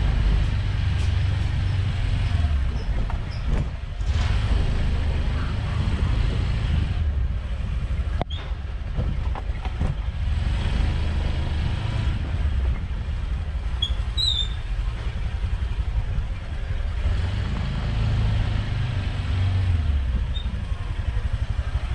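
Motor scooter riding through a narrow lane: a steady low rumble of the engine and travel noise, with a single sharp click about eight seconds in.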